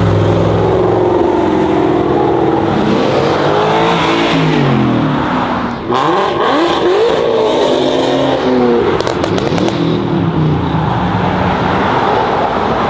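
Several high-performance car engines revving hard, their pitch repeatedly climbing and falling as they overlap. About six seconds in a louder rush of noise begins, with a few sharp pops around nine seconds.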